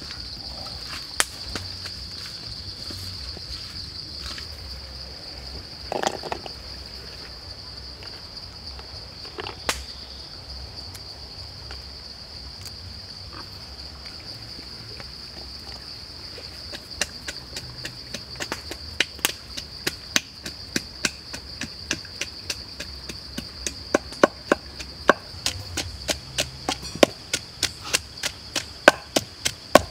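Steady high-pitched insect drone of crickets or cicadas, with a few scattered knocks. From a little past halfway, a pestle starts pounding chili and garlic in a wooden mortar: quick, regular knocks, a few a second, getting louder.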